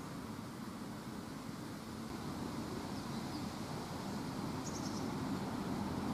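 Steady outdoor ambience: a low rumbling hum with hiss, and a few faint high chirps about three seconds in and again about five seconds in.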